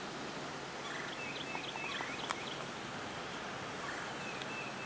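Steady outdoor rush of wind and moving floodwater, with a bird chirping in short high calls about a second in and again near the end, and a single sharp click about two seconds in.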